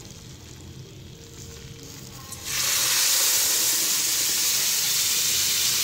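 Milk poured into hot oil-roasted semolina in a frying pan, which breaks into a sudden loud sizzle about two and a half seconds in and keeps sizzling steadily.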